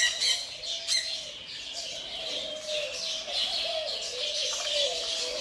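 Caged birds chirping in quick high notes, over a low, wavering coo of doves that runs on without a break.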